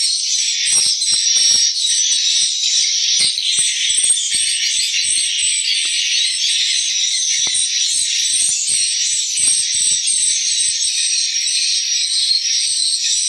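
Dense, continuous twittering chirps of swiftlets filling a swiftlet house, with many sharp clicks scattered through it.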